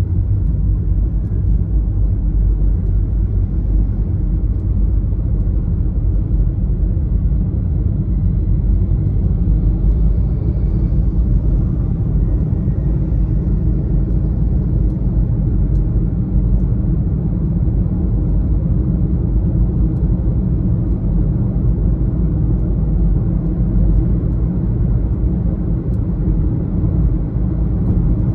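Steady low rumble of a car driving, with road and tyre noise and engine sound heaviest in the bass.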